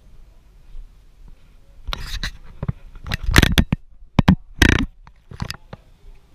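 Handling noise from a wide-angle camera being moved about: a run of loud rubbing and knocking bumps on the microphone, several of them over about four seconds, starting about two seconds in.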